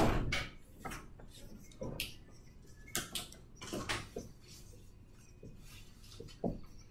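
Dry-erase marker writing on a whiteboard: a scattered series of short, faint scratchy strokes and taps as letters are drawn.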